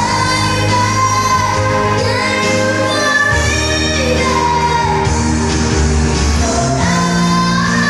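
A singer's high voice, amplified through a microphone, holding long sliding notes over backing music with a steady bass line.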